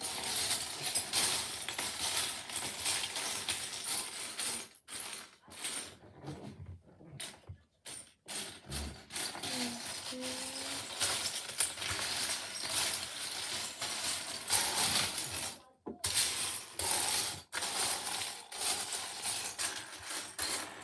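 Loose plastic Lego pieces clattering and clicking as a hand rummages through a pile of them to find a part, with a few short pauses.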